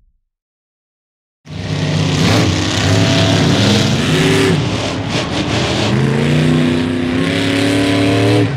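Monster truck engine running and revving, its pitch rising and falling several times as the truck drives. It comes in abruptly after about a second and a half of silence.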